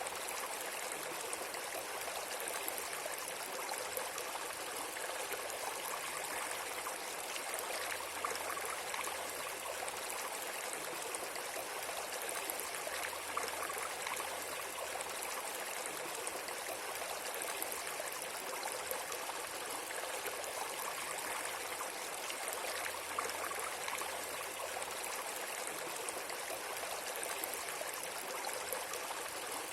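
Steady, unbroken rushing noise like flowing water, even throughout with no distinct events.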